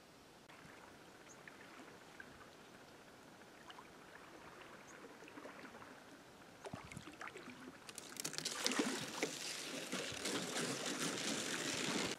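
Paddle strokes and water splashing as an inflatable kayak is paddled in, getting much louder about eight seconds in as the boat reaches the shore.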